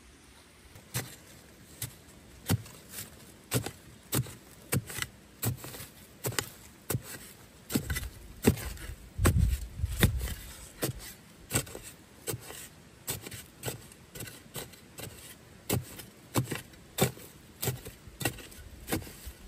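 A hand tool digging into the ground: a string of sharp strikes, irregular at roughly one to two a second, with a low rumble of handling about halfway through.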